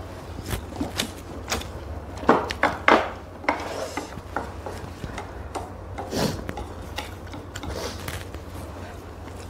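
Irregular clicks and scrapes of wooden chopsticks against bowls and the pan as instant noodles are served and eaten, over a low steady hum.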